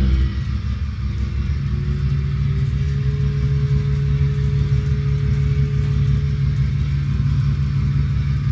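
Sound-equipped model diesel locomotive's recorded engine sound, played through its speaker with a subwoofer adding the low end: a steady diesel rumble at running speed, with a whine that rises a little in pitch about a second in and then holds.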